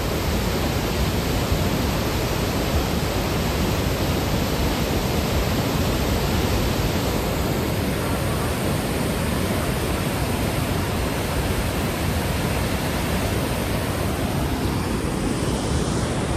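The Beas River in flood: a loud, steady rush of muddy floodwater pouring over boulders.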